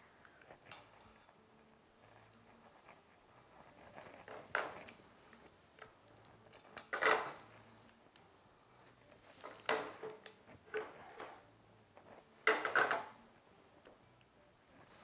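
Spatula scraping and knocking against a metal pan and a glass baking dish while thick fig filling is scooped out and spread: scattered scrapes and clinks, the loudest about seven and twelve and a half seconds in.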